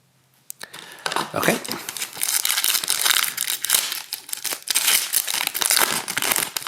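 An Upper Deck Synergy hockey card pack wrapper being torn open and crinkled by hand. The loud, continuous crinkling starts about half a second in and goes on for about six seconds.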